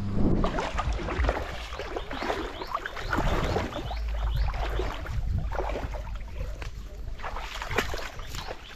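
Wind buffeting the microphone at a river, with irregular splashing and sloshing of water.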